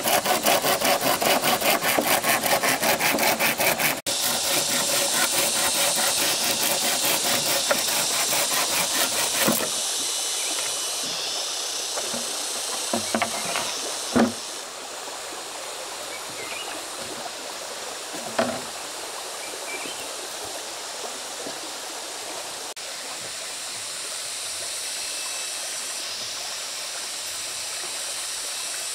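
Hand saw cutting wood with quick, even strokes, pausing briefly about four seconds in and stopping at about ten seconds. After that comes a steady rush of running water, with a few sharp knocks.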